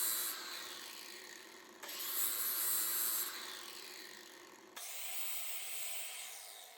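Hand-held power tool cleaning up a steel pulley hub for welding, triggered in short high-pitched bursts three times and winding down after each.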